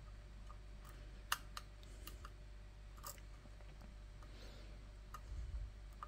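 Faint, irregular metallic clicks of a hook pick working the pin stack of an ASSA oval pin-tumbler cylinder held under tension, with two sharper clicks a couple of seconds apart. A soft low bump near the end.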